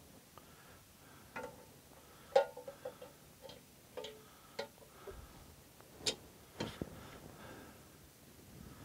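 Scattered light metallic clinks and knocks, some ringing briefly, as the greased rocker (tappet) cover is lowered onto the David Brown 990 tractor engine's head and worked into place over its studs. The sharpest knocks come a little over two seconds in and about six seconds in.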